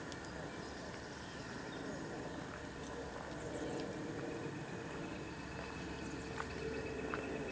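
Steady outdoor background noise with a low rumble, a faint steady hum that grows stronger from about the middle, and a thin high tone joining a few seconds in.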